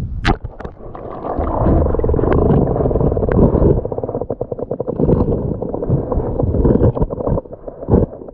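Muffled underwater sound of a shallow stream heard through a submerged camera: a heavy low rumble and gurgling, with runs of rapid clicks.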